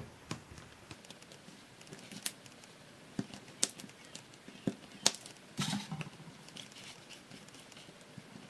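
Small blade chopping tiny slices off a rod of baked polymer clay on a hard work surface: a series of sharp, irregularly spaced clicks as the blade cuts through and taps the table.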